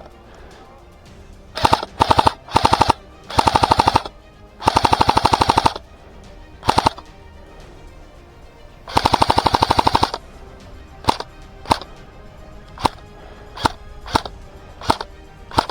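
Airsoft electric gun firing several short full-auto bursts of rapid BB shots, the longest lasting about a second, then switching to single shots about one or two a second near the end.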